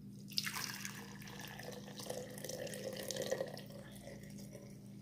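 Water poured from a plastic cup into a glass jar over tea bags: a steady splashing stream that starts about half a second in and thins out near the end.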